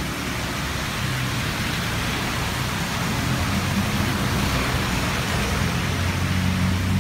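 Steady hiss of rain falling on wet streets, with the low hum of a passing motor vehicle's engine growing near the end.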